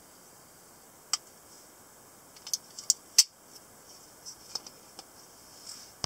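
Sharp metallic clicks from a semiautomatic (spring-assisted) folding knife being worked by hand as its blade is unlocked and folded shut: about ten clicks, spread unevenly, the loudest a little after three seconds in.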